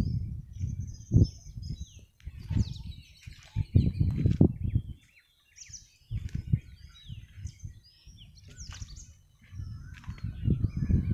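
Many small birds chirping and twittering in quick short calls, over loud, uneven low rumbling buffets on the microphone that come and go, strongest near the start, in the middle and toward the end.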